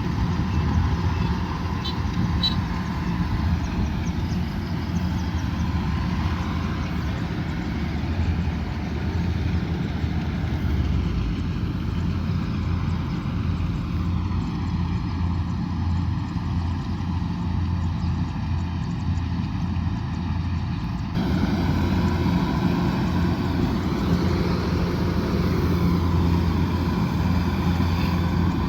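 Kubota DC108X combine harvester's diesel engine and threshing machinery running steadily under harvesting load, a continuous low drone with a faint steady whine above it. The sound steps up slightly in level about three quarters of the way through.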